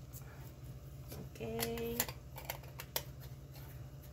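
A few light, scattered clicks and taps from hands handling kitchenware over a steady low hum.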